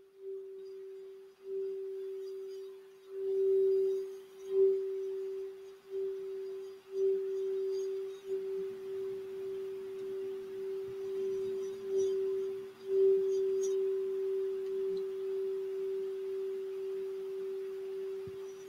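Crystal Alchemy singing bowl tuned for the throat chakra, sung by a wand circling its rim. It gives one steady, ringing tone that swells and dips in loudness.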